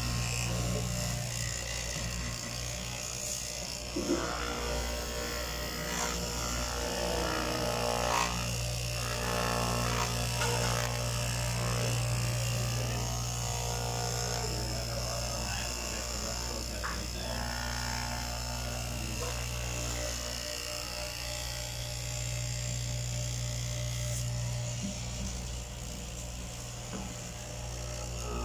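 Straight-knife fabric cutting machine running with a steady electric motor buzz as its vertical reciprocating blade cuts through a thick stack of fabric layers.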